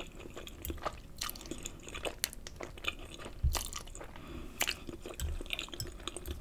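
A person eating noodles in Alfredo sauce, slurping a forkful in and then chewing, with many short wet mouth clicks. The loudest thump comes about three and a half seconds in.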